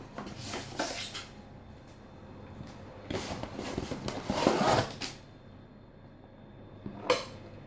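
Rustling and scraping of plastic packaging and containers being handled. It comes in a short burst about half a second in and a longer, louder one from about three to five seconds in, with a sharp knock near the end.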